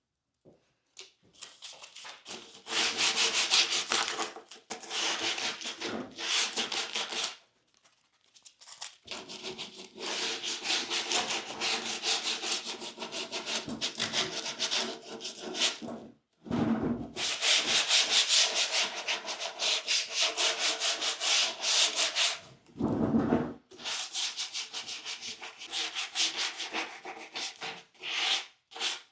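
Hand sanding with sandpaper, a light scuffing in quick back-and-forth strokes, in four long bouts with short pauses. Two brief low thumps come between bouts.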